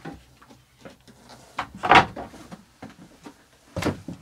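Footsteps and wooden knocks and bumps on a yacht's cabin floor and joinery, several separate knocks with the loudest about two seconds in and another near the end.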